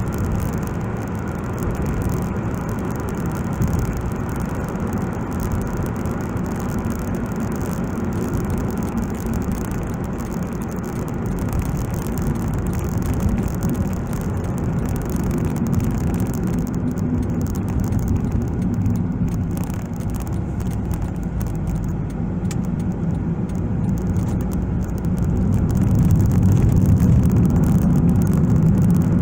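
Steady road noise inside a moving car's cabin: tyres on asphalt and the engine's low hum. It grows louder near the end.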